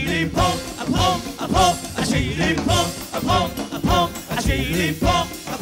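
Live Persian pop band music: an upbeat number with a steady beat and a short melodic phrase repeated about every half second.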